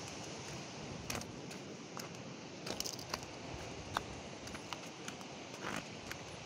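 Scattered small clicks and crunches over a steady outdoor hiss, from someone walking over loose rock while holding the camera.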